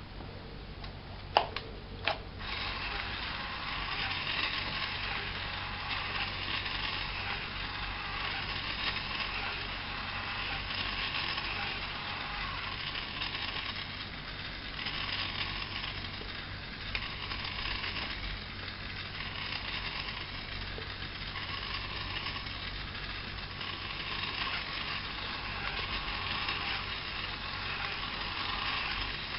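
Two clicks close together, then the small gear motors of an Arduino pinwheel display start up and run with a steady, slightly uneven whir.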